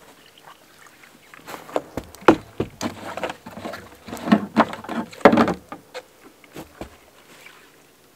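Hollow knocks and rattles of plastic jugs and bins being handled on a sled, with a run of sharp knocks densest in the middle that dies away near the end.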